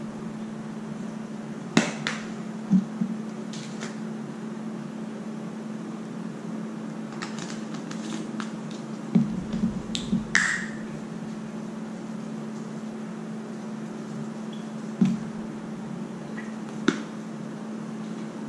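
Spice bottles being handled while fish fillets are seasoned, with short clicks and knocks as bottles are picked up, opened and set down on the countertop. There are a few single clicks early, a cluster of knocks around the middle, and two more late. A steady low hum runs underneath.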